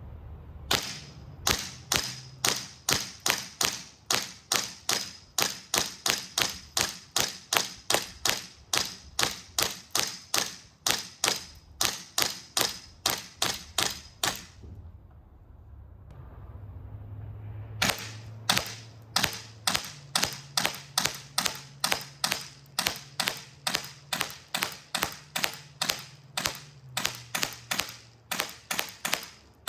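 GHK HK416A5 gas blowback airsoft rifle firing semi-automatic shots, about three a second, each a sharp crack of the gas and the cycling bolt. The firing stops for about three seconds midway, then resumes.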